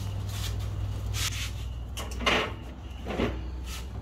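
Small under-counter fridge being opened, with a few short knocks and rustles of its door and contents about a second apart over a steady low hum.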